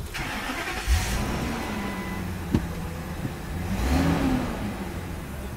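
Ford Excursion engine starting about a second in, heard from inside the cab. It revs briefly around four seconds in, then settles to a steady idle.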